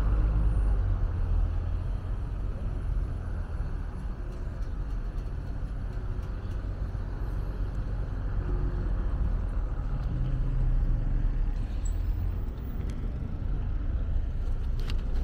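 Street traffic: a steady low rumble of passing cars, with a sharp click near the end.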